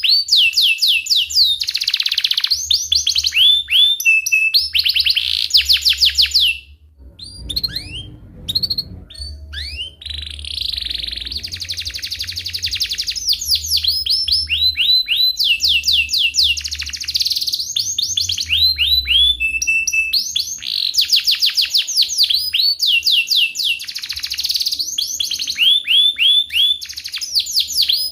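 Domestic canary singing a long, fast song of rolling trills and rapid repeated chirps, pausing briefly about a quarter of the way through before the song picks up again.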